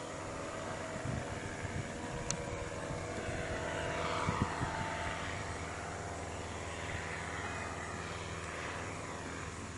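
Powered paraglider trike's engine and propeller droning steadily overhead, swelling a little toward the middle and then easing slightly.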